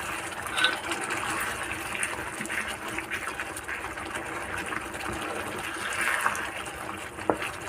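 Thick tomato chutney simmering in a non-stick pan, bubbling and sputtering as a wooden spatula stirs through it, with small clicks and scrapes from the stirring.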